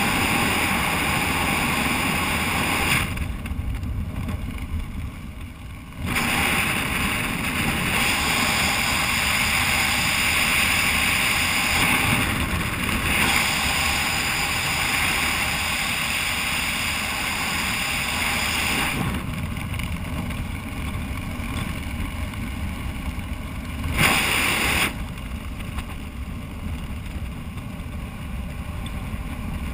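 Wind rushing over a small action camera's microphone while descending under an open parachute canopy. The rush is steady and loud, easing off for a few seconds now and then as the airflow changes.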